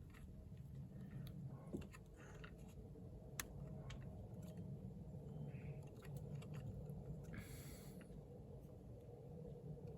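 Faint handling noise from pushing terminal pins into a coil-pack harness connector: a few small sharp clicks and a short rustle about seven seconds in, over a low steady hum.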